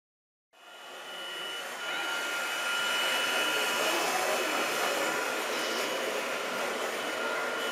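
Radio-controlled scale-model wheel loader at work: a steady electric-motor whine over a hiss, starting about half a second in and building over the next second or so.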